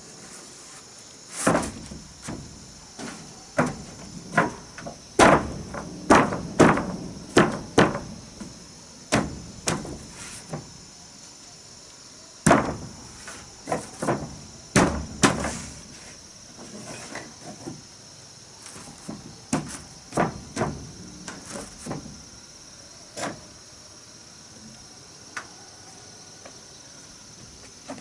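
Irregular wooden knocks and thuds, as of timber boards being hammered or knocked into place, in clusters that thin out in the second half. A steady high chirring of crickets or other insects runs underneath.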